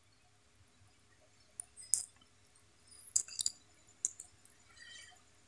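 Hands handling a piece of cardboard, giving a few soft taps and clicks as fingers press and shift it, with a faint rustle near the end.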